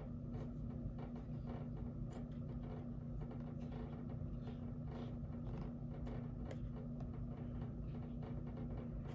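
A steady low hum, with faint scattered small taps and rubs from a cotton swab being dipped in a plastic bottle and dabbed on leather.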